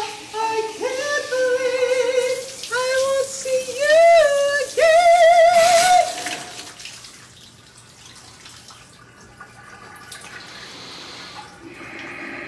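A man singing a melody in a high voice with wavering vibrato over running shower water. The singing breaks off about six seconds in, leaving only the softer hiss of the shower spray.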